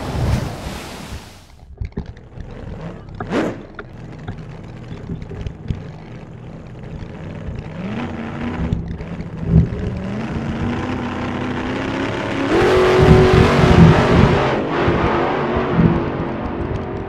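Dubbed-in vehicle engine sound effect: an engine running and revving, rising in pitch about eight seconds in and again a couple of seconds later, then louder for about two seconds past the twelve-second mark. A short sweeping sound about three seconds in.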